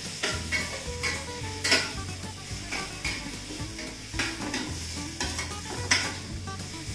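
Sliced onions sizzling as they fry in ghee in a pan on a gas stove. A metal spatula stirs them, scraping and knocking against the pan a few times a second.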